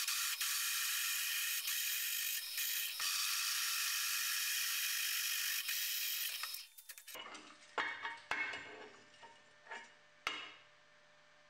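Drill press twist drill cutting through a metal bar, a loud steady cutting noise that stops about seven seconds in. A few metallic clinks and scrapes follow as the bar is handled, over a low motor hum.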